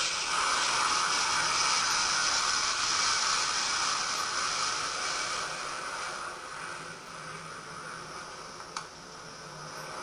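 Super Scooper water-bombing flying boat heard as a steady rushing noise that fades away after about six seconds. A single sharp click comes near the end.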